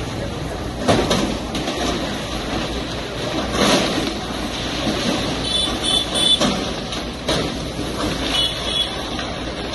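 Hydraulic excavator's engine running under load as its arm breaks up a concrete slab and timber props. Debris crashes down several times, and there are a few short high squeals of scraping metal.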